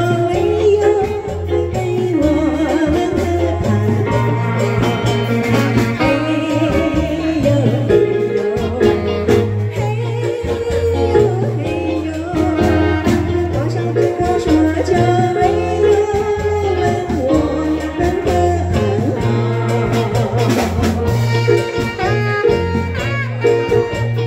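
A woman singing through a microphone with a live band behind her, over a steady, rhythmic bass line. Near the end she stops singing and a saxophone carries the melody.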